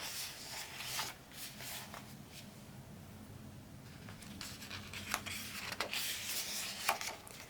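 Paper rustling and rubbing as a picture book's pages are handled and turned, with a few soft clicks.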